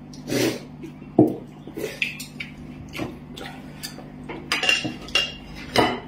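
Tableware at a meal: chopsticks knocking and clinking against porcelain bowls and plates, with a glass set down on the table. It comes as a series of separate short knocks and clinks, some ringing briefly, over a low steady hum.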